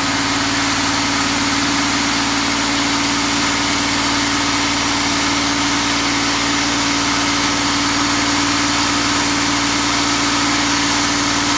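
Ford F250 engine running steadily, driving its belt-driven smog pump, which is being used as a low-pressure air compressor. The pump pushes a high volume of air through a hose into an inflatable ring: a steady engine hum under an even rush of air.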